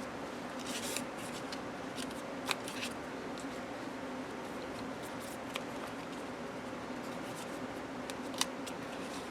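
Pages of a paper journal being handled and turned: faint paper rustles and a few light ticks over a steady low hum.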